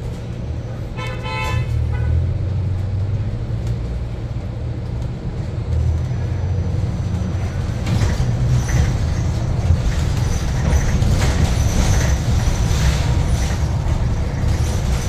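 Inside a battery-electric articulated city bus (New Flyer XE60) in motion: a steady low hum of the electric traction motors and road rumble, with clicks and rattles from the body growing busier in the second half. A brief horn toot sounds about a second in.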